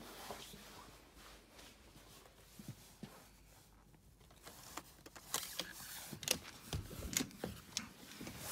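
Hotel room door being unlocked with a key card and opened: after a few quiet seconds, a run of sharp clicks and knocks from the electronic card lock, handle and door, with a couple of heavier thuds near the end.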